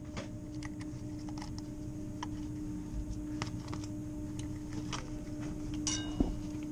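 Small scattered clicks and taps of a screwdriver and wires being worked loose at an electric valve actuator's terminal block, over a steady low mechanical hum. A louder scrape and a knock come about six seconds in.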